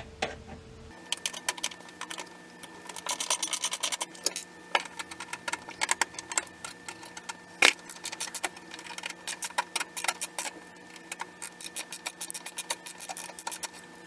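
Screwdriver turning screws out of a steel computer chassis: a long run of small metallic clicks and ticks, in quick runs.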